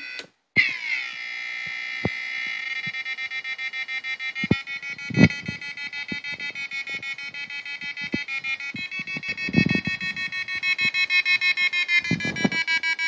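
Piezo element driven by an Arduino Uno sounding an electronic tone whose pitch is set by a stylus pressed on a soft potentiometer strip. After a brief gap the tone slides down in pitch and then holds, pulsing about five times a second, with a small change in pitch about nine seconds in. A few low knocks from handling the parts.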